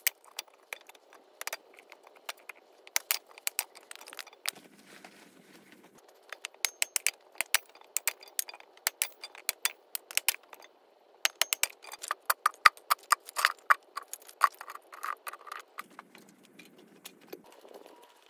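Rapid sharp knocks and clinks of a mallet striking firewood on a chopping block, splitting it into kindling, coming in quick clusters with short pauses.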